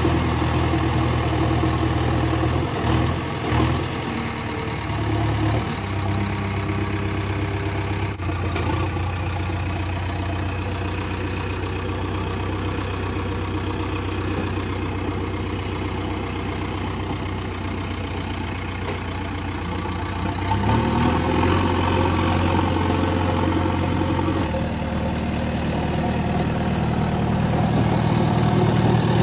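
Engine of a tractor-type vehicle running at a steady idle, a continuous low hum. The tone shifts a few times: about a third of the way in, and twice more in the last third, where it grows slightly louder.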